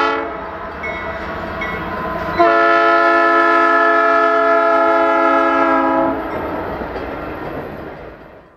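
Canadian Pacific diesel freight locomotive's multi-note air horn: the end of one blast right at the start, then one long blast about two and a half seconds in, held for about three and a half seconds. Under it the train runs by, and the rumble fades away near the end.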